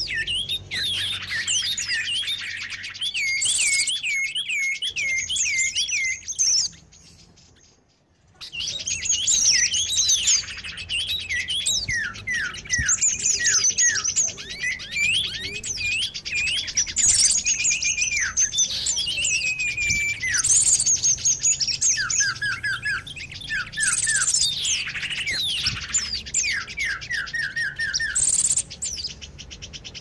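Bird-lure recording of many small songbirds chirping and calling over one another in a noisy chorus, with quick series of falling whistled notes. It drops out to near silence for about two seconds a few seconds in, then resumes just as dense.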